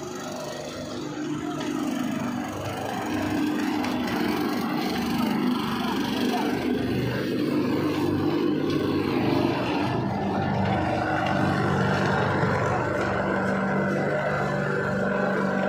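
Machinery in a precast concrete yard running steadily with a low, even hum, getting a little louder about two to three seconds in.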